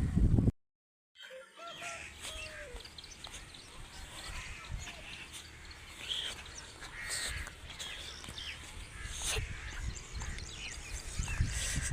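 Rural outdoor background with birds calling and chirping on and off. At the very start a brief loud low noise cuts off suddenly, followed by about a second of silence.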